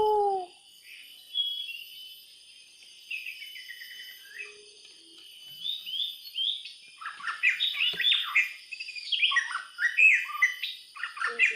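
Songbirds chirping and trilling in quick, high notes, sparse at first and much busier in the second half, over a faint steady high whine.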